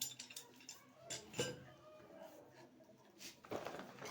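Hard plumbing parts or tools being handled: a few sharp clicks and clinks, the loudest about a second and a half in.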